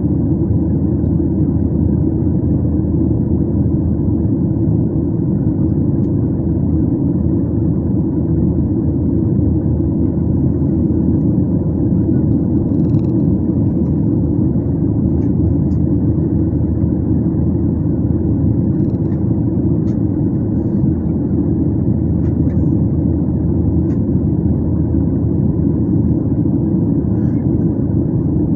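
Steady low rumble of a jet airliner in flight, heard inside the passenger cabin: engine and airflow noise with no changes, plus a few faint ticks.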